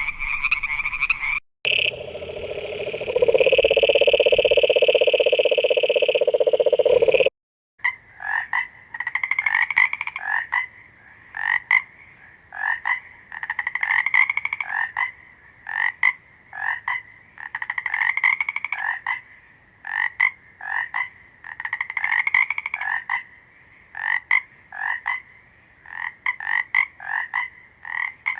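Frogs croaking. A brief call breaks off, and a loud, steady, unbroken call follows for about five seconds before stopping abruptly. After that come short croaks repeated about once or twice a second.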